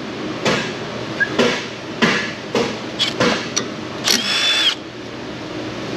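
Sharp metallic clicks and knocks as a brake hose's metal end fitting is worked into its bracket on the truck frame, about six taps over the first three and a half seconds. A brief hiss follows about four seconds in.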